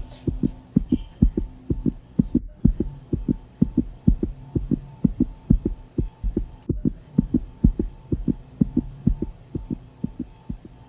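Fetal puppy heartbeat played through an ultrasound machine's Doppler audio: fast, even pulses about four a second over a steady hum. The signal breaks off briefly twice.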